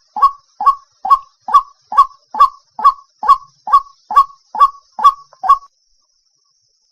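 White-breasted waterhen calling: a loud harsh note repeated about twice a second, roughly a dozen times, then breaking off a little over a second before the end.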